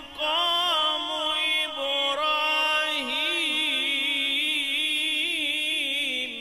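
Male qari reciting the Quran in a slow, melodic tajweed style, the voice gliding through ornamented turns and then holding one long wavering note through the second half.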